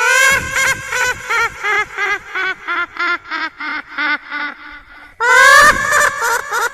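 High-pitched cackling laugh sound effect: a long opening shriek breaking into a fast chain of 'ha-ha' pulses, about three or four a second, with a second cackle starting about five seconds in.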